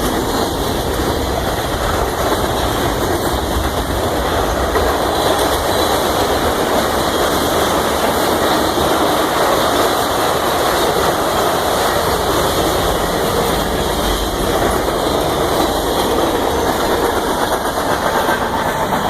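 Union Pacific train rolling past, a loud, steady noise of wheels running on the rails.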